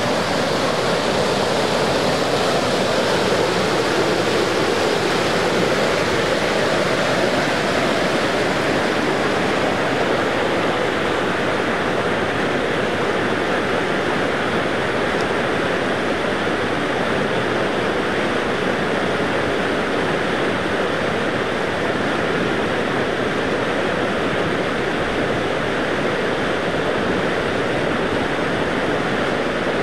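Swollen, muddy floodwater of Arroyo Paredon Creek rushing in spate, a steady unbroken wash of noise.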